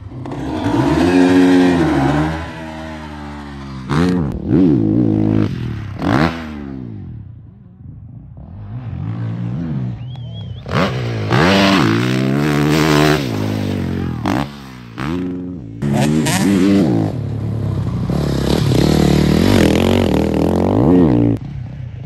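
Honda CRF450RW single-cylinder four-stroke motocross bike engine revving hard on the track, the throttle opened and chopped over and over so the pitch climbs and falls through the gears. It gives several short sharp blips, and the sound drops away briefly twice.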